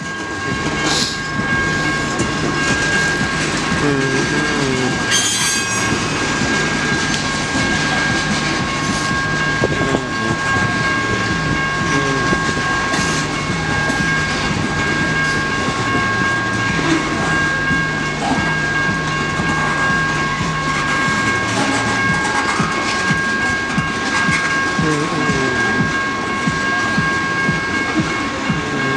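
CSX freight train cars rolling through a grade crossing, wheels clattering steadily over the rails. Several steady high-pitched tones ring on throughout.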